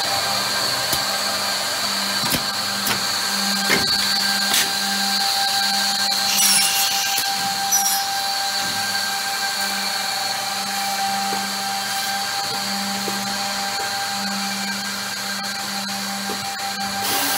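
Brandt Ambition 1650CF edgebanding machine running, its cutter and trimming-unit motors whining steadily with several fixed tones. A few sharp clicks come in the first five seconds, and a short high hiss follows about six seconds in.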